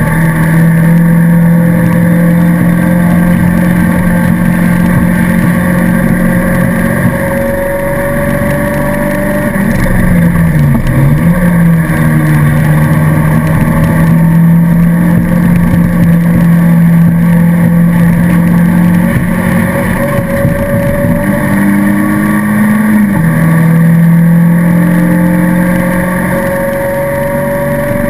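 Race car engine running hard, heard from inside the stripped, roll-caged cabin, with wind and road noise. It holds a fairly steady pitch, dips briefly about ten seconds in, and steps up and then back down about two-thirds of the way through.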